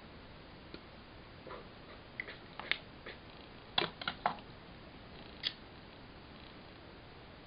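Scattered light clicks and taps of a lipstick tube and makeup being handled and set down on a desk. The loudest is a quick cluster of knocks about four seconds in.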